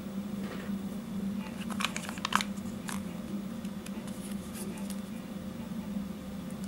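Handling noise from the polymer grip of a gas blowback airsoft pistol: scattered plastic clicks and scrapes, with a quick cluster about two seconds in, over a steady low hum.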